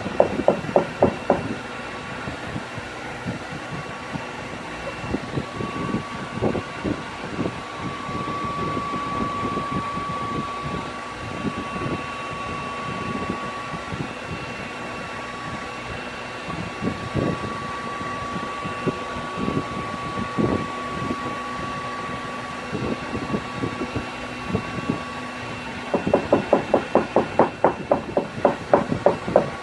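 Heat gun running steadily with a thin whine, drying liquid vinyl on a seat-cover repair. Quick runs of taps come at the start and again over the last few seconds.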